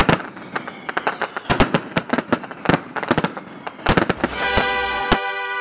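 Aerial fireworks going off in a rapid, irregular run of sharp bangs and crackles. About four seconds in, music fades up and plays under the last few bangs.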